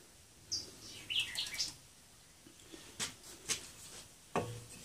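A small bird chirps a few times, short high notes in the first two seconds. Then come three sharp knocks, the last with a brief ring.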